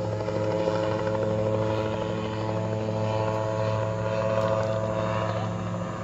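A steady engine drone, even in pitch, with no revving.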